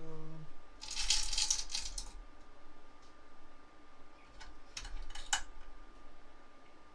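Metal engine parts clicking and clinking as they are handled and fitted into the crankcase: a quick run of rattling clicks about a second in, then a few sharper clicks around five seconds in.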